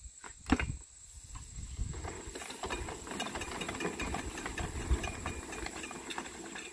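Black poly well pipe scraping and ticking as it is fed off a reel down into a well casing, with an uneven low rumble of wind on the microphone. A sharp thump about half a second in.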